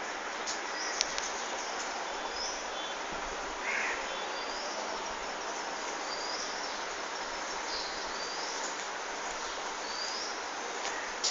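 Steady background hiss with a small bird chirping, short high chirps repeating every second or so, and a couple of brief clicks.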